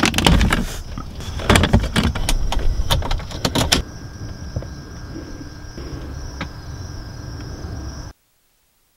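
Clicks and knocks of a handheld OBD-II code reader's cable plug being pushed into the diagnostic port under the dashboard and handled, loudest in the first four seconds. Quieter steady background with a faint high tone follows, then the sound cuts off abruptly near the end.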